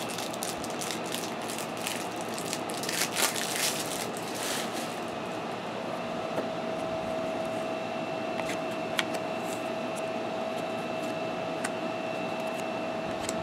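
Rustling and crinkling of trading cards and packaging being handled for the first few seconds. Then a steady room hum with a faint high whine, broken by a few light clicks.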